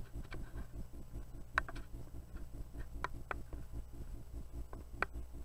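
Several sharp, separate clicks from a small plastic camera light and its switch being handled to turn the light off, over a faint low steady hum.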